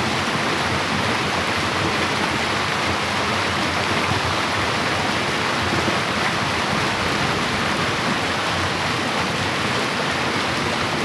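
Heavy-rain runoff rushing past in a strong, steady flow of water.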